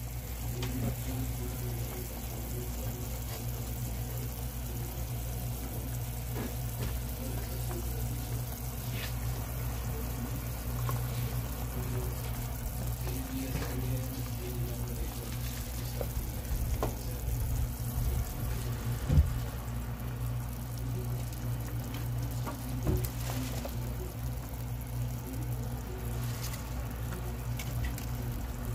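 Steady hiss of a pot cooking on the stove over a constant low hum, with a few light clicks and one sharp knock about two-thirds of the way through.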